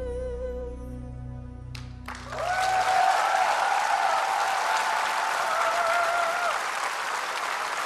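The ballad's final held, vibrato-laden note dies away. About two seconds in, a large theatre audience breaks into loud, sustained applause, with cheering voices over the clapping.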